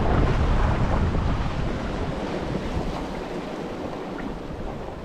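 Wind buffeting the microphone over the steady wash of sea surf. The low wind rumble eases off after about two seconds.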